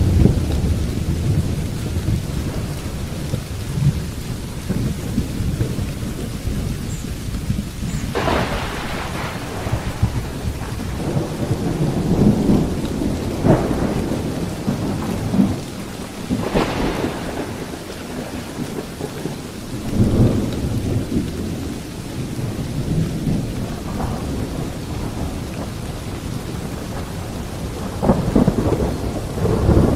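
Thunderstorm: steady rain with low thunder rumbling throughout. Louder, sharper peals of thunder break in about eight seconds in, several times around the middle, and again near the end.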